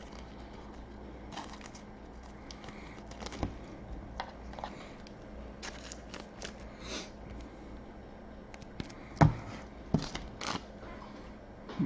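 Trading cards being handled and flipped through, with light rustling and scattered clicks, then a few sharper knocks near the end, the loudest about nine seconds in.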